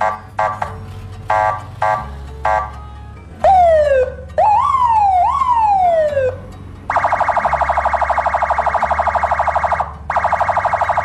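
Electronic police siren fitted to a car, switching between its tones: several short buzzing horn blasts, a falling sweep about three and a half seconds in, two rising-and-falling wails, then a long buzzing horn tone of about three seconds and another shorter one near the end.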